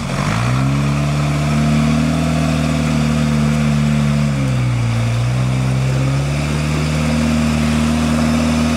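Off-road truck or Jeep engine held at raised revs under load, rising about half a second in, easing off briefly around the middle, then climbing back and holding steady.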